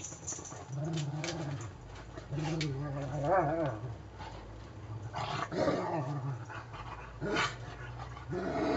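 Two Caucasian Shepherd dogs play-fighting, growling low in several stretches, with higher wavering whines and yelps about three seconds in and again several times later.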